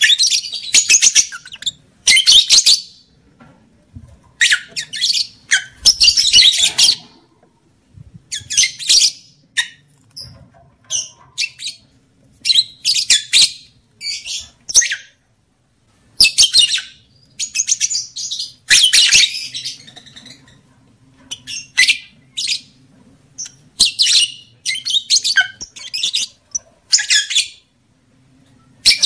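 Lovebirds chattering in shrill, high-pitched bursts of about a second each, with short pauses between them. This is the kind of lovebird call played as a lure to rouse breeding behaviour.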